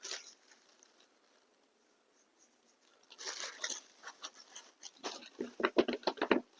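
Dry wood shavings being handled and spread by hand, crunching and rustling: a brief rustle at the start, a longer rustle about three seconds in, then a quickening run of sharp crackles near the end.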